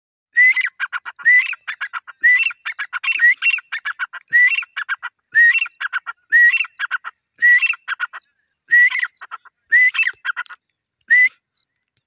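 Grey francolin (teetar) calling: a loud phrase repeated about once a second, each opening with a rising whistled note and running into a quick string of shorter clipped notes. It calls about eleven times and stops shortly before the end.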